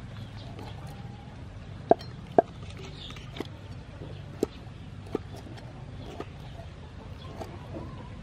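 Cleaver-style kitchen knife knocking on a wooden chopping board, slicing soft cooked sea snail meat: sharp single knocks spaced a second or so apart, the two loudest about two seconds in. Chickens cluck faintly in the background.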